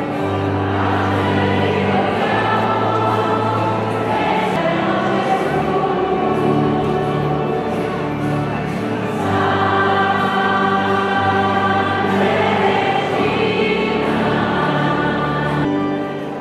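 A choir singing a hymn over held, sustained chords, the chords changing every couple of seconds; the music cuts off near the end.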